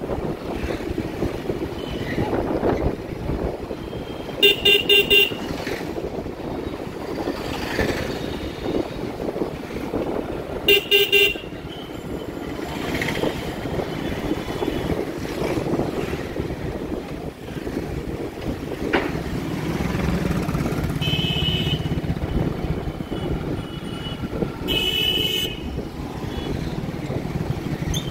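Busy city street traffic heard from a moving motorcycle: steady engine and road noise, broken by short vehicle-horn honks four times, a quick run of beeps about four seconds in, another about eleven seconds in, and two more in the last third.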